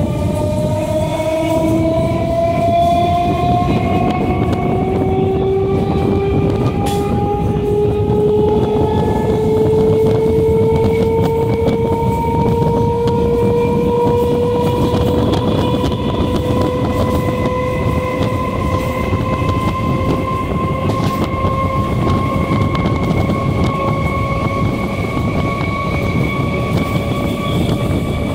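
Electric multiple unit (EMU) train's traction motors whining in a slowly rising pitch as the train picks up speed, the rise easing off near the end. Under it runs the steady rolling noise of the wheels on the rails.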